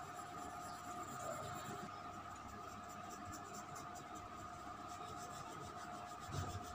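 Faint scratching of an HB graphite pencil shading on drawing paper, with light repeated strokes, over a steady faint hum.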